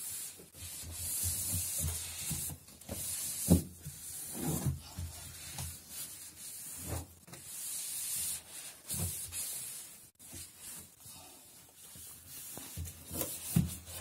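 Damp cloth rubbing and wiping over the plastic inner walls and floor of a refrigerator in repeated strokes, with a few light knocks of hand and cloth against the plastic, the loudest about three and a half seconds in.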